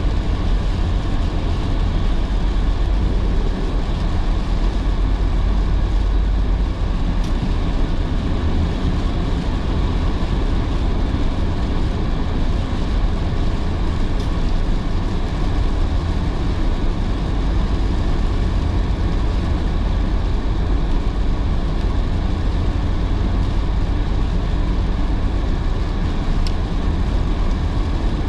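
Steady road noise of a car driving in heavy rain: a low rumble of tyres on wet pavement with an even hiss over it.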